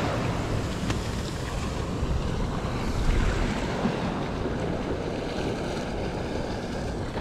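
Wind buffeting the microphone, with a low rumble, over the steady wash of surf.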